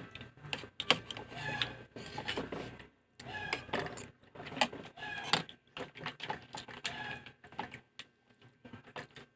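Eating sounds at the table: a run of short, sharp clicks and clinks of cutlery and dishes.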